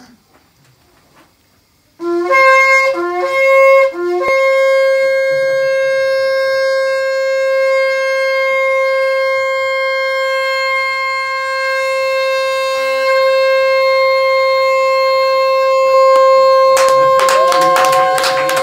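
Long spiralled kudu-horn (Yemenite) shofar blown: about two seconds in, three short blasts each jumping up from a lower to a higher note, then one long held steady note. Clapping breaks out over the held note near the end.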